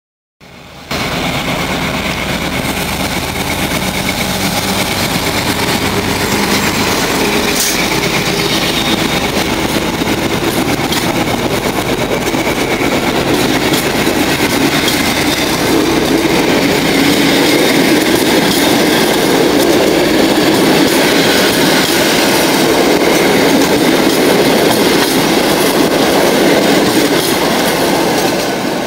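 Passenger coaches of a departing train rolling past at close range, with steady wheel-on-rail noise that grows a little louder in the second half and eases off near the end.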